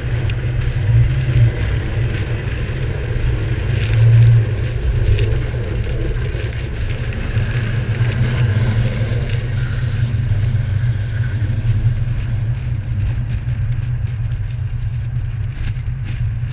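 Loud, steady rumble of road and wind noise picked up by a camera mounted on the outside of a vehicle driving past snow plows on a snow-covered freeway, with scattered crackling clicks throughout.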